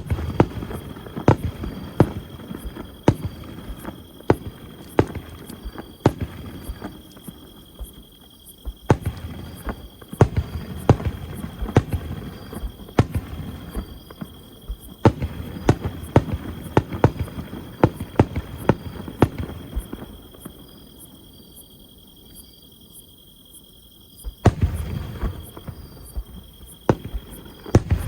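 Aerial fireworks bursting: many sharp bangs in quick succession over a low rumble of echoing booms. The bangs thin out to a lull about twenty seconds in, then a fresh rapid volley starts near the end.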